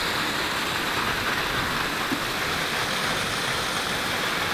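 Steady rushing of flowing creek water tumbling over falls.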